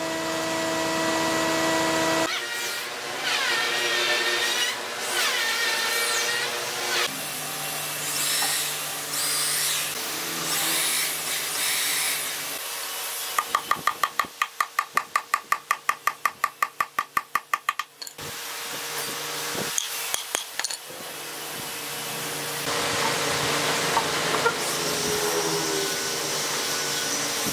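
Woodworking power tools running on wood, changing in sound as the work goes on. About halfway through comes a rapid, even run of knocks, about five a second, lasting several seconds.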